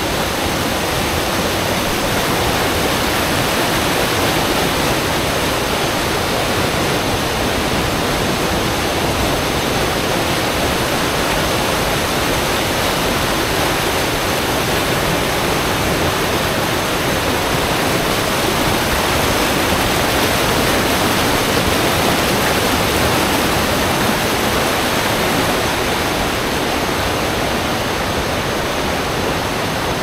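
Fast river rapids rushing and churning over boulders: a loud, steady rush of water.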